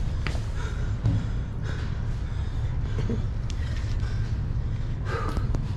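Steady low outdoor rumble, with a few faint short chirps and light clicks over it.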